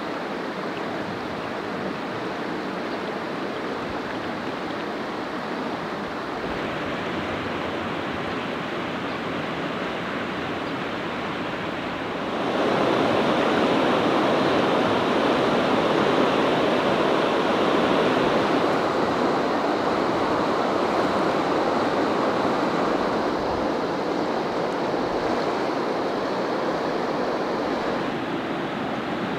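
River water rushing over a rocky bed: a steady wash of water that grows louder about twelve seconds in and eases slightly near the end.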